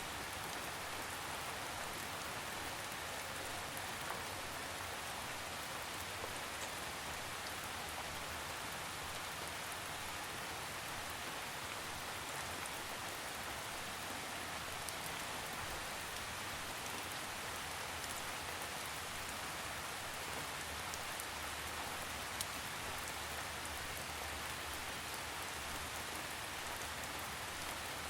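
Steady rain falling, with a few separate drops ticking sharply now and then.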